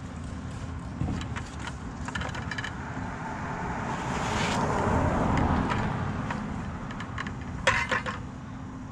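A car passes, its noise rising and falling over about three seconds in the middle, over a steady low hum. Stacked orange plastic five-gallon buckets knock together and their wire handles clink as they are pulled apart, with a sharp cluster of clacks near the end.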